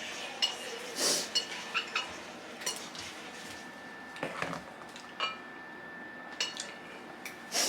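Scattered clinks and taps of eating utensils against plates and dishes during a meal, with a couple of louder scraping bursts about a second in and near the end.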